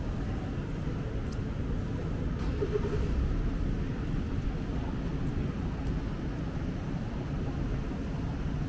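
Steady low rumble of city street traffic, with a few faint ticks and a brief short tone about three seconds in.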